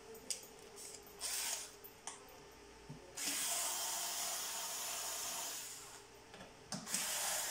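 Small cordless electric screwdriver running in short spurts as it backs screws out of a ventilator's rear cover: a brief burst about a second in, a longer run of a few seconds from about three seconds in, then it starts up again near the end.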